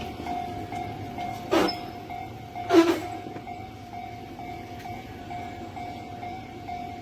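Japanese level-crossing warning bell ringing steadily in a fast repeating pulse over the rumble of a train. Two sharp knocks come about one and a half and three seconds in, the second the loudest.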